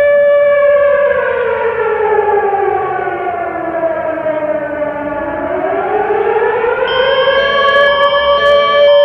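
Civil-defense-style siren wail for an emergency alert: a held tone that slides down in pitch over about four seconds, then climbs back up. About seven seconds in it steadies again and a pulsing pattern of higher tones joins it.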